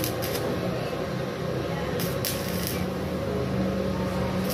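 Stick-welding arc from a small 450-watt inverter welder (Izumi MO-120), a steady crackling hiss as the electrode burns, with sharper crackles at the start and about two seconds in.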